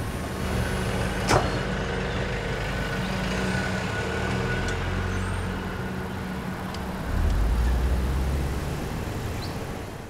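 A Mercedes-Benz van's sliding door shuts with a sharp click about a second in, then the van's engine runs steadily and grows louder about seven seconds in as the van pulls away, fading near the end.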